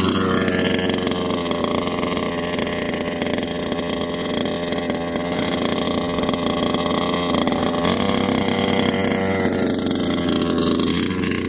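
The 30.5cc two-stroke engine of a 1/5-scale Baja 5B RC buggy running under throttle, its pitch rising near the start and again about eight seconds in, then dropping near the end.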